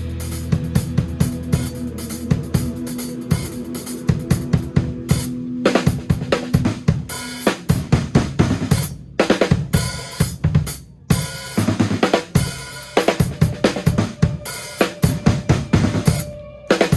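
Live band playing a fast, drum-led groove: the drum kit's bass drum, snare, hi-hat and cymbals hit in a dense rhythm under held bass and keyboard notes. The whole band stops for a moment several times, around five, nine, eleven and sixteen seconds in.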